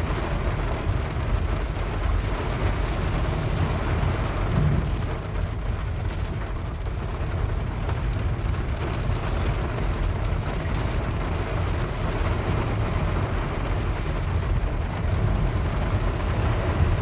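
Heavy rain falling steadily on a flooded street, with a continuous low rumble underneath.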